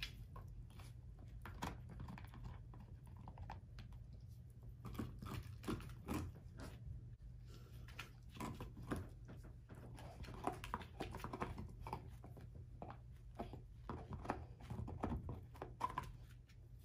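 German shorthaired pointer gnawing and chewing an air-dried, hair-on pig foot: irregular crunches and wet chewing clicks as she works at the tough skin and bone.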